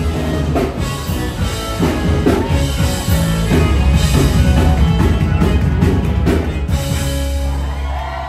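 Live band playing rock music with guitar, bass and drum kit, finishing a song with a rapid drum fill and a held final chord that stops right at the end, with cheering following.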